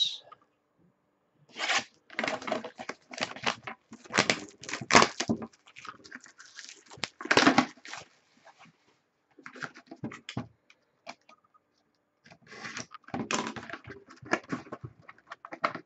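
Plastic shrink wrap being slit and torn off a sealed cardboard trading-card box, giving irregular crinkling and tearing rustles that are loudest in the first half. Near the end the cardboard box is handled and opened.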